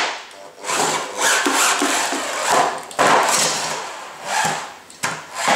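Featherweight combat robot's drill-motor-driven lifter running slowly in several bursts, the steel lifter arms scraping and knocking against a wooden board as the robot levers itself over to self-right from being stuck upside down.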